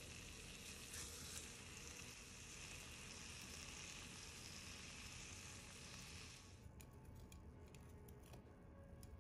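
Steak sizzling faintly in a cast iron skillet, a steady hiss that cuts off suddenly about two-thirds of the way through. A few light clicks follow.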